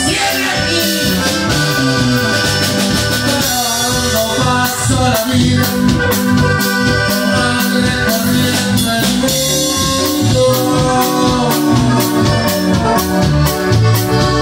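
A live norteño band playing: accordion melody over electric bass and drum kit, at a steady beat.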